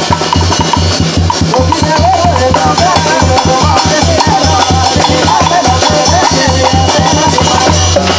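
Loud live band music: a drum kit with cymbals keeps a quick, steady beat over a held bass while a lead melody line winds along in the middle range.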